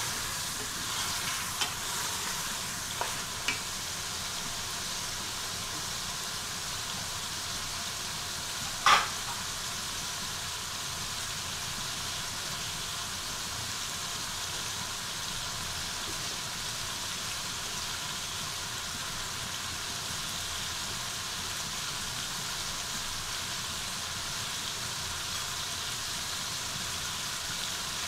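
Chicken pieces frying in oil and their own juices in an aluminium pot, a steady sizzle throughout. A wooden spoon stirs and knocks against the pot a few times in the first few seconds, and there is one sharp knock about nine seconds in.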